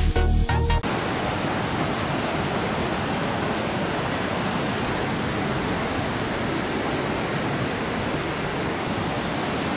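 Ocean surf breaking and washing, a steady even rush with no letup; music cuts off just under a second in.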